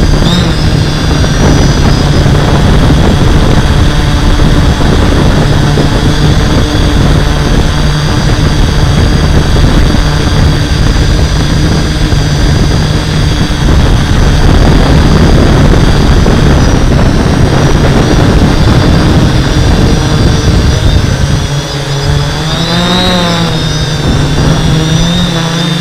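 Hexacopter's six brushless motors and 11-inch propellers running steadily in flight, heard from the onboard camera with a heavy low rumble of prop wash on the microphone. A few seconds before the end the rumble eases and the motor pitch wavers up and down as the throttle changes.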